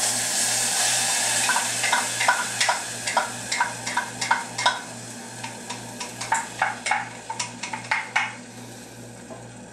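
Ketchup going into a hot pan with a sudden sizzle that fades over the first couple of seconds. A utensil then scrapes and clinks against the measuring cup and pan in quick strokes, about three a second, stopping a little after eight seconds in.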